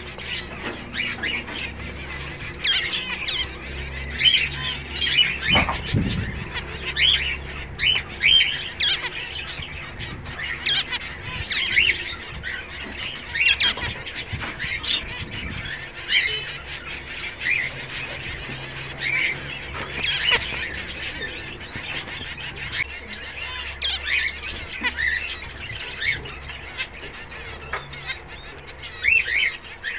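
A group of caged zebra finches calling: many short, repeated chirping calls from several birds, overlapping one another.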